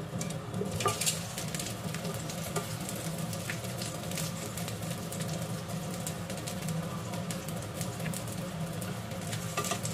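Eggplant slices topped with minced fish frying in oil in a pan, sizzling and crackling, with a louder surge about a second in as the glass lid comes off. Metal tongs tap against the pan as pieces are turned, over a steady low hum.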